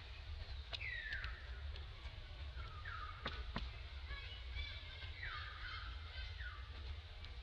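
Animal calls: about four high-pitched calls a second or two apart, each sliding downward and levelling off, with a couple of sharp clicks about halfway through and a steady low rumble underneath.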